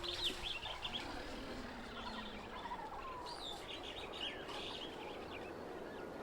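Small birds chirping: quick high calls in bunches, one in the first second and another about three to four seconds in, over a faint steady outdoor background.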